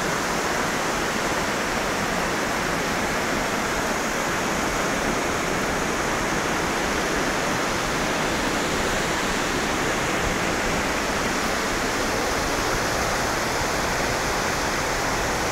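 Torc Waterfall in spate, swollen after days of heavy rain: a steady, even rush of falling water.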